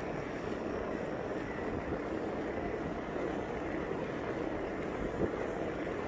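ICE recumbent trike rolling at speed on asphalt: steady tyre noise mixed with wind on the microphone, with a light knock about five seconds in.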